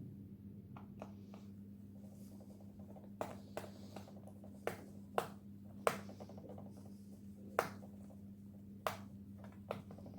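Screwdriver and small screws clicking and tapping against a laptop's bottom panel while the back-cover screws are being removed: about nine short, sharp clicks at uneven intervals, starting about three seconds in. A steady low hum runs underneath.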